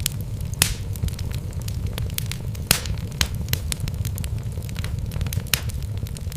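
Wood fire burning in a fireplace: a steady low rumble of flames with irregular crackles and sharp pops from the burning logs, a few louder pops standing out.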